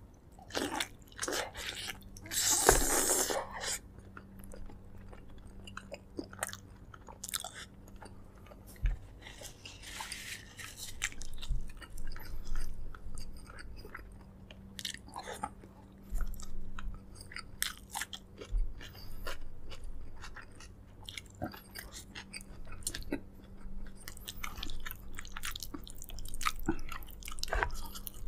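Close-miked chewing and biting while eating braised pork leg: wet mouth clicks and smacks with occasional crunches, and a louder burst about three seconds in.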